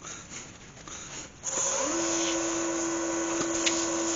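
Galaxi DVR wood lathe switched on about a second and a half in: its motor whine slides up briefly and settles to a steady hum over a steady hiss as the oak lid spins up for buffing the wax. Faint handling sounds come before it.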